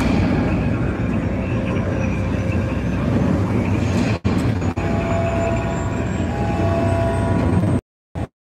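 A loud, deep rumbling film soundtrack played through an arena's sound system, with a few faint steady tones over it. It dips briefly about four seconds in and cuts out for about half a second near the end.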